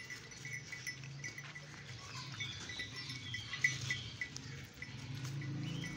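A herd of goats foraging: many small scattered clicks and rustles as they nose through plastic bags and litter, over a thin steady high tone and a faint low hum.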